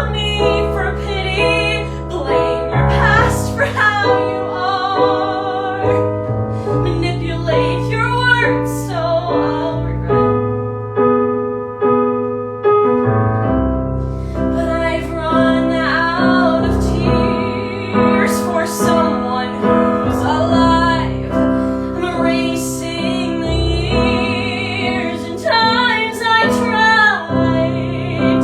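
A woman singing an art song with vibrato over piano accompaniment; her voice drops out for a few seconds near the middle while the piano plays on.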